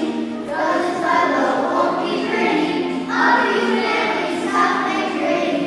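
A class of children singing a song together as a group.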